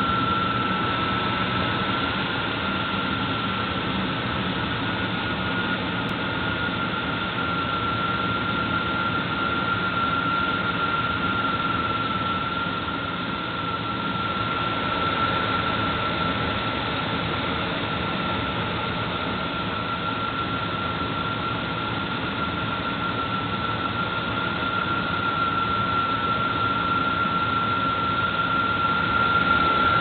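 Car engine idling with a steady high-pitched whine from the accessory belt area, one unchanging tone held throughout: an unidentified noise from the belt drive or one of its pulleys.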